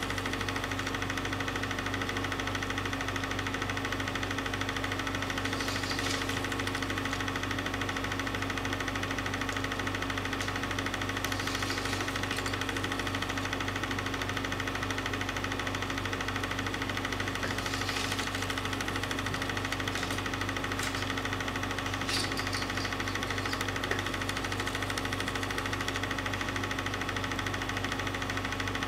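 A film projector running: a steady mechanical whir and clatter with a constant hum.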